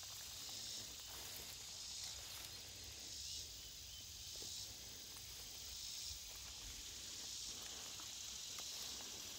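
Insect chorus in summer grass: a steady high buzzing that swells and fades every second or so, over a low steady rumble.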